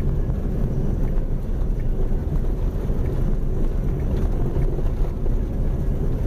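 In-cabin road noise of a Jeep Grand Cherokee driving a sandy dirt road: a steady low rumble of tyres on sand and a little washboard, with the engine underneath.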